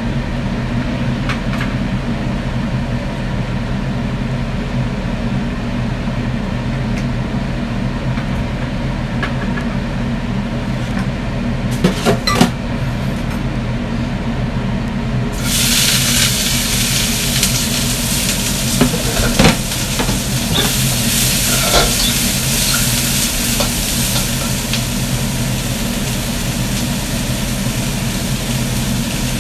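Vegetables frying in hot oil in a wok on a gas burner. A loud, even sizzle starts about halfway through as they go into the pan, and it continues over a steady low hum, with a few sharp knocks of the spatula against the wok.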